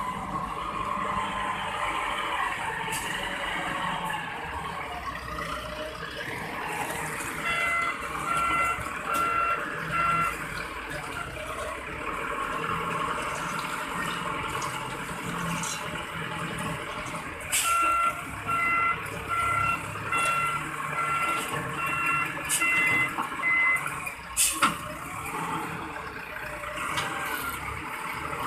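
Sonking SK-100D wheel loader's Yunnei YN38GBZ turbo diesel engine running while working, with its reversing alarm beeping steadily in two stretches, a few seconds each, about a quarter of the way in and again past the middle. A sharp knock a few seconds before the end.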